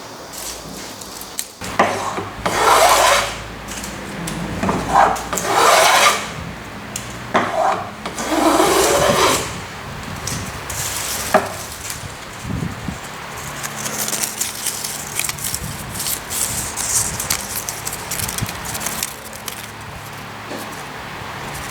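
Japanese kanna hand plane drawn across wood in four long strokes over the first ten seconds, each stroke a rising-and-falling hiss. Lighter, finer scratching and rubbing on wood follows.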